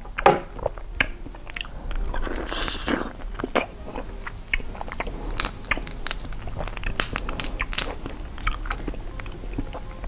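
Close-up eating of a soy-sauce-pickled raw crab with roe: bites and crunches of the shell, with wet chewing and many short sharp clicks throughout.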